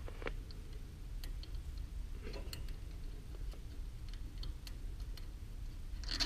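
A long 1/4-inch module bolt being unscrewed by hand from an X13 blower motor: faint, irregular light clicks and ticks over a low steady hum.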